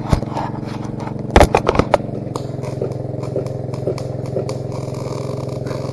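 An engine-drive welder's engine running steadily while a MIG welding arc crackles on constant current. A few sharp knocks come about a second and a half in.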